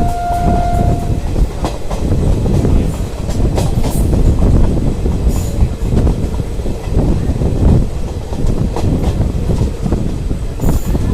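Passenger train coaches rolling along the track, heard from on board: a loud, steady rumble with a dense clatter of wheels over rail joints. An electric locomotive horn sounds one steady note that ends about a second in.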